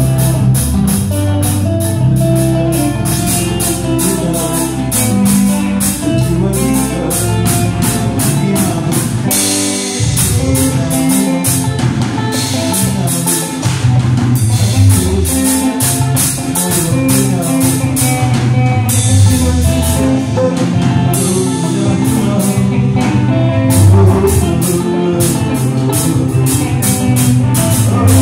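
Live band playing a song: a drum kit keeping a steady cymbal beat under electric guitars and keyboard. The low notes drop out briefly about ten seconds in, then come back.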